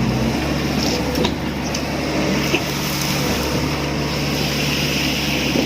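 Engine of site machinery running steadily at construction, with a few light knocks and clinks, the sharpest about halfway through.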